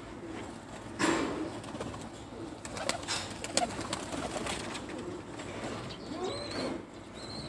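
Ödemiş süslüsü fancy pigeons cooing as they feed on the ground, with low curving coos near the end. A sharp knock comes about a second in, and scattered clicks follow.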